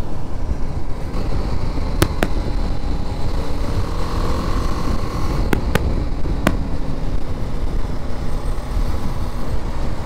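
BMW G 310 GS's single-cylinder engine running steadily at cruising speed in top gear, mixed with wind rush at the rider's camera. Five sharp clicks stand out: two about two seconds in and three more between five and a half and six and a half seconds in.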